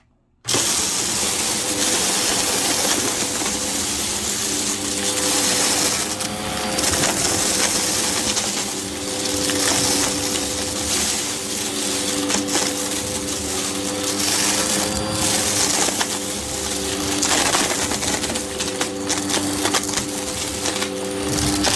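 Hoover vacuum cleaner running on a rug, its motor holding a steady hum under dense crackling and crunching as grit is picked up. It starts abruptly about half a second in.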